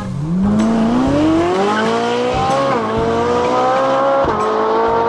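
Race car engine sound effect accelerating through the gears: the engine note climbs steadily, drops back at a gear change about three seconds in and again a little after four seconds, then holds high.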